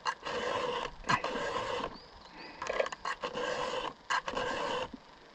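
Hand file rasping across the cutters of a chainsaw chain during sharpening: five strokes, each under a second, about one a second.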